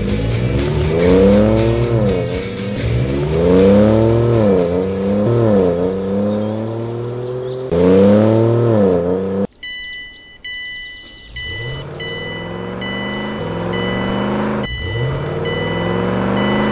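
Truck engine sound effect revving up and down again and again, rising and falling in pitch. About nine and a half seconds in it cuts off sharply and a level-crossing warning bell starts, ringing in evenly repeated high dings, with engine revs swelling under it every few seconds.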